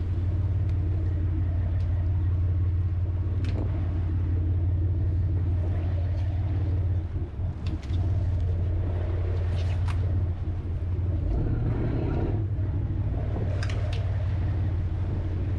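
Longline fishing boat's engine running with a steady low hum, with a few sharp clicks from the deck over it.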